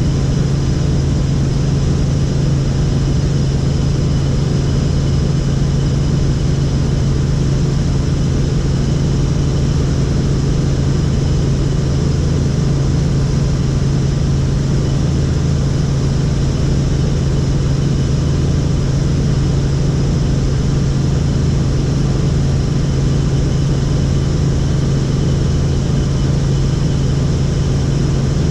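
Helicopter in flight, its engine and rotor giving a loud, steady drone with a strong low hum.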